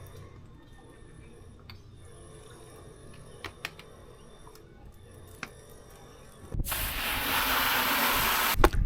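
Faint scattered clicks and taps, then about two-thirds of the way in a loud steady hiss like a spray or air jet, lasting about two seconds and cutting off abruptly.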